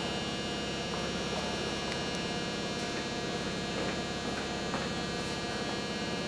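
Steady electrical hum made of several steady tones, unchanging in level.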